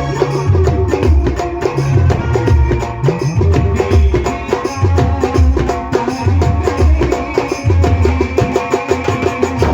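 Music with a steady drum beat and a repeating bass line.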